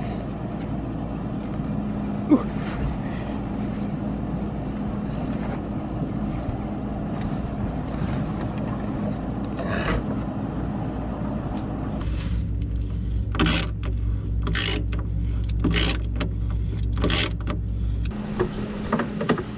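Steady low hum. In the second half comes a run of five or six sharp metallic clicks and clinks: hand tools on bolts and nuts as deck hardware is tightened from inside a boat's hull.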